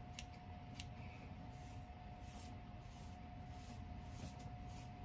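Faint rustling of hands fluffing and shaping a kinky afro-textured wig, in a series of short hissy rustles with two sharp clicks in the first second, over a faint steady hum.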